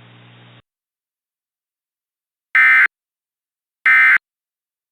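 Emergency Alert System end-of-message data bursts: two short, identical buzzy tone bursts about a second and a half apart. They carry the digital code that closes an alert.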